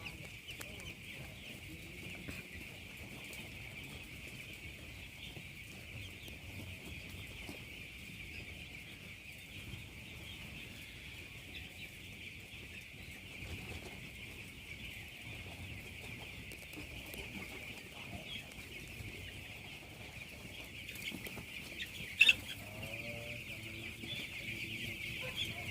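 Dense, steady peeping of a large flock of week-old broiler chicks, with one sharp knock near the end.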